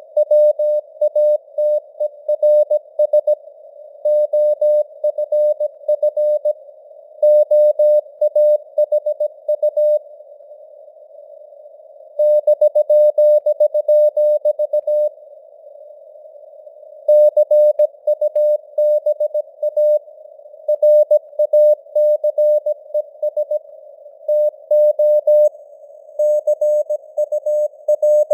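Morse code (CW) sent at 17 words per minute: a single steady tone keyed on and off in dots and dashes, over a narrow band of simulated radio-receiver hiss. The keying stops twice for about two seconds at a time.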